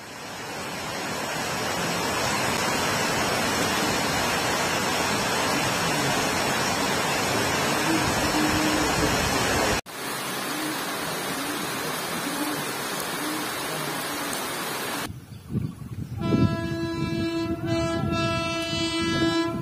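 Heavy rain pouring down in a steady hiss. In the last few seconds a railway locomotive horn sounds one long, held blast over a low rumble.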